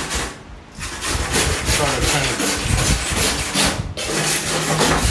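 Stiff hand brush scrubbing the bare, tinned steel body panel of a Porsche 356 in rapid back-and-forth strokes, with a short pause about half a second in and another near the end. The metal is being cleaned ahead of lead loading.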